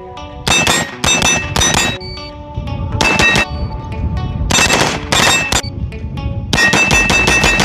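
Rapid strings of gunshots, several quick bursts of fast fire with hit steel targets ringing after them, over background music.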